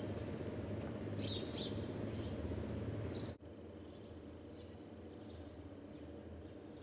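Small birds chirping in short, scattered calls over a steady low hum of village ambience. The background drops quieter a little after halfway through.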